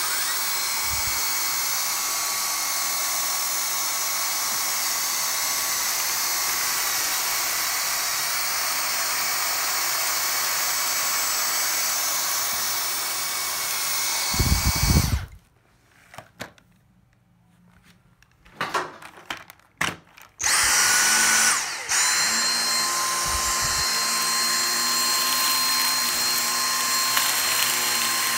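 Cordless Dyson stick vacuums running over carpet. The first runs steadily on low power with a high motor whine, then stops with a thump about fifteen seconds in; after a few seconds of handling clicks a second Dyson starts up, its whine rising briefly before settling into a steady run.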